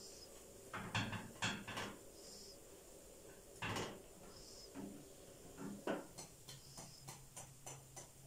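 Metal slotted spoon knocking and scraping against a frying pan while fried dough fingers are scooped out of the oil. A few louder knocks in the first four seconds, then quicker light taps near the end.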